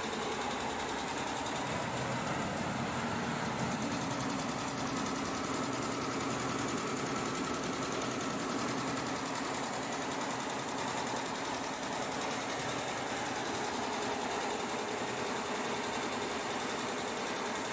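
ShengMing multi-head commercial embroidery machine stitching: a steady, fast mechanical rattle of the needle bars running on all heads at once.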